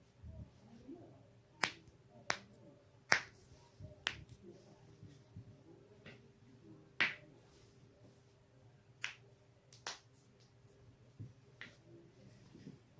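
Human joints cracking: about nine sharp, separate pops at irregular intervals, the loudest about three seconds in.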